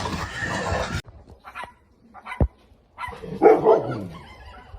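A dog barking, loudest about three and a half seconds in.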